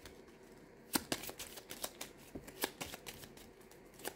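Tarot cards being handled and shuffled: a few soft, scattered clicks and slaps of the cards, starting about a second in.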